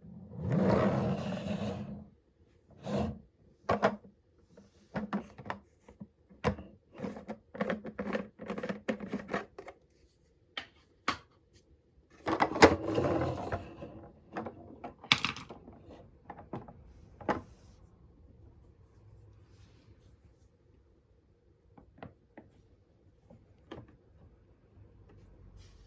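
Marbles rolling and clacking down a HABA wooden marble run: two stretches of rolling rumble, one right at the start and one about twelve seconds in, each followed by a string of sharp wooden clicks, then only a few scattered clicks near the end.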